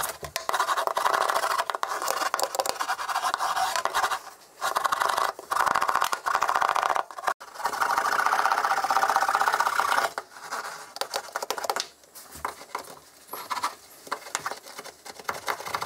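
Hand roller being pressed back and forth over a freshly laid sheet of Kilmat foil-faced butyl sound-deadening mat on a van floor, rolling it down so it bonds. It comes in long strokes of two to three seconds with short breaks, growing fainter and more broken over the last few seconds.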